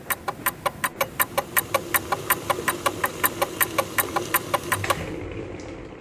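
Rapid, even ticking like a fast-running clock, about five or six ticks a second, over a steady low hum. The ticks stop about five seconds in, leaving a soft hiss.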